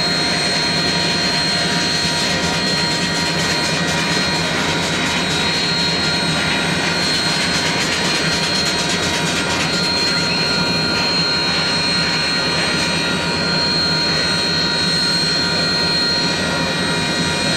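Union Pacific 844, a 4-8-4 steam locomotive standing still, venting steam with a steady loud hiss and a high steady whine over it.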